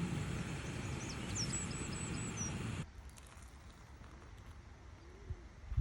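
A small bird chirps a short run of high notes over a steady rushing noise. The rushing cuts off abruptly about three seconds in, leaving quiet outdoor ambience with a couple of soft thumps near the end.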